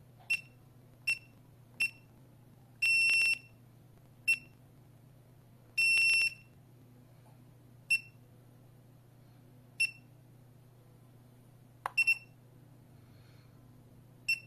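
Wireless touch alarm keypad beeping as its keys are pressed: a string of short high beeps, two longer beeps of about half a second, and a quick double beep near the end.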